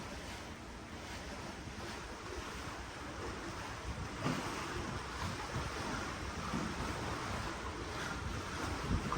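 Ocean waves washing and splashing below a cruise ship, with wind gusting across the microphone. The water noise grows louder about four seconds in.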